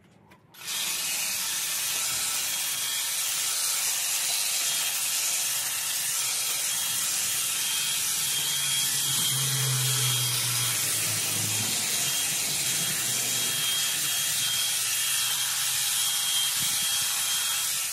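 Hedge trimmer running steadily with its blades cutting. It switches on about a second in and cuts off suddenly at the end, with a faint steady high whine over it.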